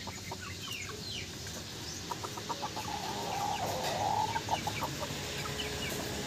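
Chickens clucking, with a quick run of clucks about two seconds in and a longer, rasping call around three to four seconds in, over many short, high, falling chirps.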